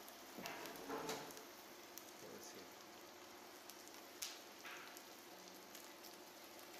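Cuttlefish strips and onion sizzling faintly in oil in a pan: a steady frying hiss, with a few short clicks.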